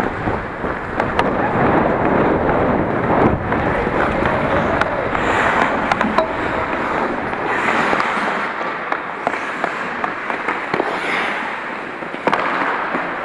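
Ice hockey skates scraping and carving across the ice, a continuous rough hiss, with many sharp clacks of sticks and puck scattered through it.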